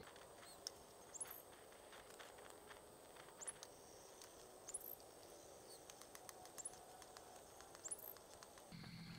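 Faint outdoor ambience with short, high, rising bird chirps about once a second, and light scattered clicks of a wooden stirrer against a small metal pot.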